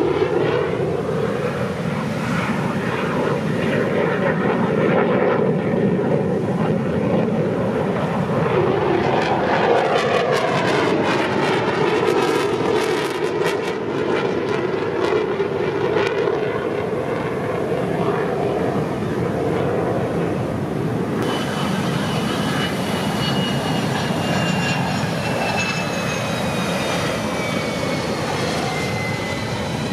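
U.S. Air Force Thunderbirds F-16 fighter jets passing overhead: a continuous jet roar that sweeps up and down as the aircraft pass, crackling in the middle. In the last third a high engine whine falls steadily in pitch as a jet moves away.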